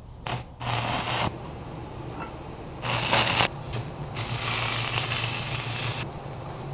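Stick welding with 6010 electrodes: a few short bursts of arc hiss, then a longer run of about two seconds near the end, over a steady low hum.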